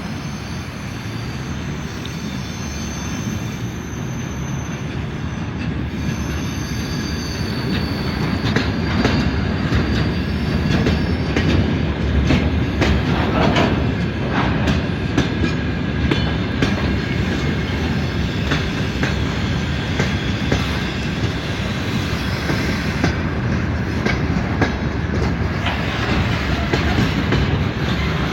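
Freight train being shoved back by a ChME3 shunting diesel: the wagons rumble steadily over the rails, with high wheel squeal in the first several seconds and then clicking over rail joints as it grows a little louder.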